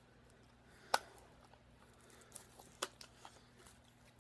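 Handling noise from night vision goggles and their strap head mount being turned over in the hands: a sharp click about a second in, another near three seconds, with fainter ticks and light rustling of the straps between.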